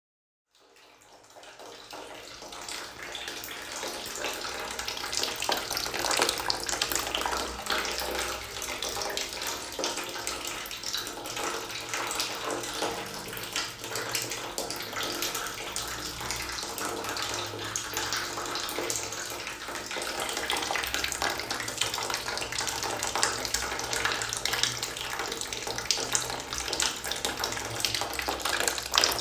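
Water running and trickling into a bucket, a steady splashing that fades in over the first few seconds.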